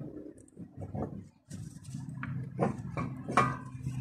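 A handful of scattered light knocks and clinks of metal parts being handled as a VW Golf Mk5's front drive shaft and outer CV joint are worked out of the wheel hub.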